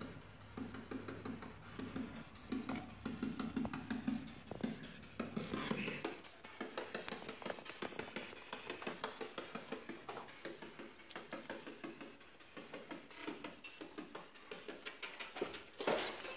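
Spirit box (ghost box) sweeping through radio stations: a rapid stream of choppy clicks and static, broken by brief snatches of tone and voice.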